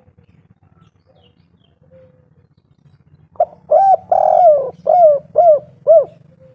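Spotted dove cooing its 'kuk 3' song: quiet at first, then about three and a half seconds in a single phrase of short arched coos with one longer drawn-out coo in the middle.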